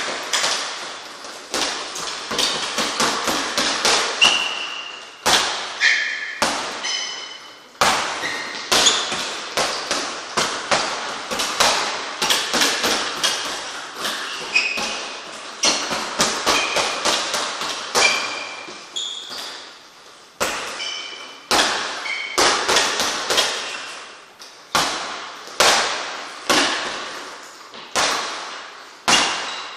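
Boxing gloves punching a double-end speed bag on elastic cords. The hits come in quick runs of several a second, each a sharp slap-thud that dies away quickly, with brief pauses between combinations.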